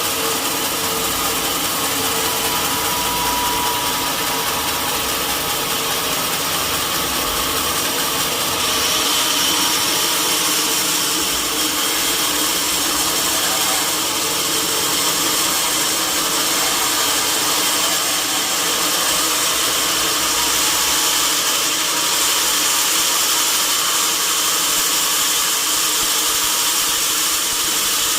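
Sawmill saw running, a steady machine noise with a constant whine throughout, typical of a log being sawn into timber.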